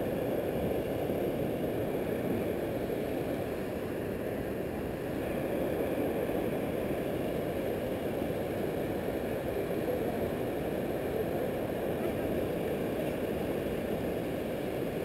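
River water rushing steadily down a cascade over smooth rock chutes into pools.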